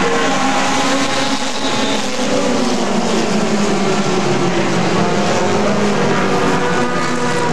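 A pack of four-cylinder mini stock race cars running under racing speed. Several engines are heard at once at different pitches, their notes rising and falling as the cars lap the oval.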